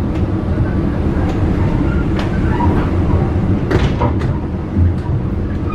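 Mild-steel economy passenger coach running along the rails at speed: a steady low rumble with a few sharp knocks from the running gear.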